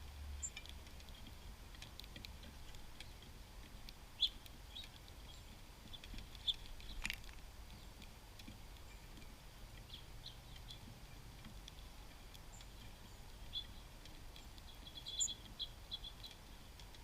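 Small songbirds at a backyard seed feeder: faint, scattered short high chips and clicks, bunched more thickly near the end, with one sharper click about seven seconds in.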